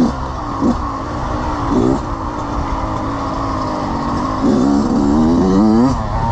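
Two-stroke dirt bike engine worked on the throttle: two quick blips about one and two seconds in, a slow easing-off, then a longer rising rev near the end, over a steady low rumble.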